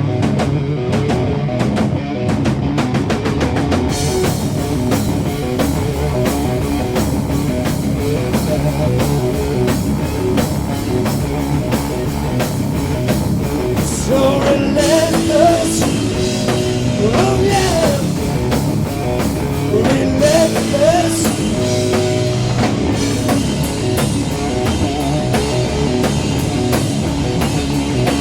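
Doom metal band playing an instrumental passage: distorted electric guitars, bass and drum kit. Cymbals come in about four seconds in, and a lead guitar plays bent notes about halfway through.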